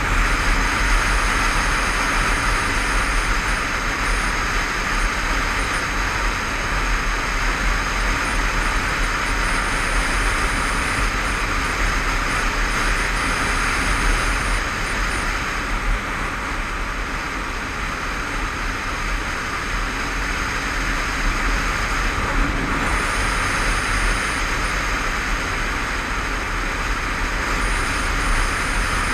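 Wind rushing over a helmet-mounted microphone, with a Honda CBF500's parallel-twin engine and tyres running steadily at road speed underneath. The wind noise eases a little about halfway through, then builds again.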